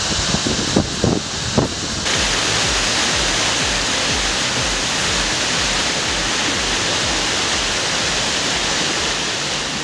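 Waterfall plunging into a pool, a steady dense roar and hiss of falling and rushing water. There are a few low bumps in the first two seconds. About two seconds in, the roar becomes fuller and louder.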